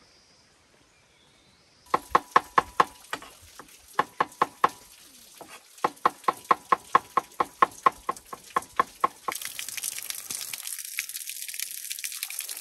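A knife chopping on a wooden board: sharp knocks at about five a second, in several runs. About nine seconds in, a steady sizzle of frying in hot oil starts suddenly.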